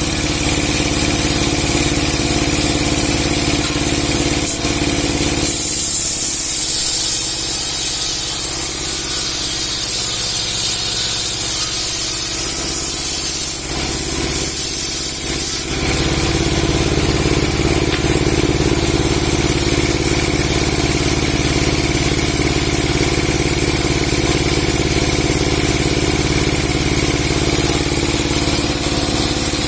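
Log-sawing machine driven by a 30 hp engine, running steadily. For about ten seconds in the middle the low hum thins and a higher hiss rises, as the 60 cm steel blade works through the log.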